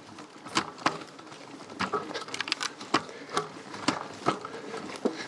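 A tripod on an e-bike's rear rack banging as the bike jolts over a rough dirt trail: irregular sharp knocks, a few each second.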